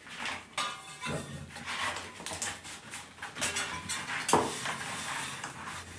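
A tubeless road tyre being handled and its bead worked onto a bicycle wheel rim: irregular rubber scuffs, rubs and clicks, with a sharper knock about four seconds in.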